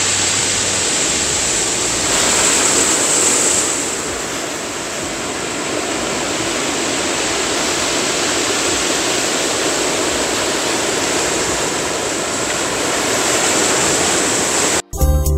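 Sea surf breaking and washing over a rocky, pebbly shore: a steady rush of wave noise that swells about two seconds in and cuts off suddenly near the end.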